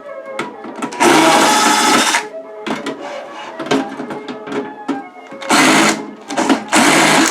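A power drill running in three short bursts of about a second each, backing screws out of a computer case, over background music.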